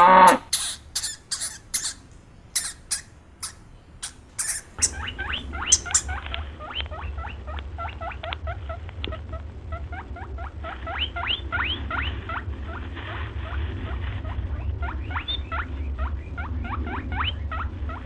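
A cow's moo ends right at the start, followed by about four seconds of scattered sharp clicks. From about five seconds in, a small animal squeaks over a low rumble: many short, rising squeaks in quick runs.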